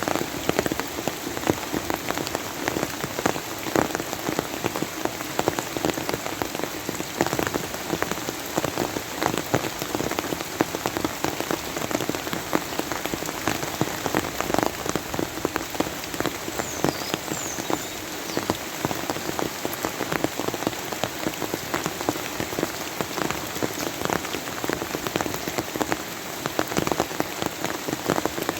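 Steady rain falling on a surface, with many individual drops pattering close by.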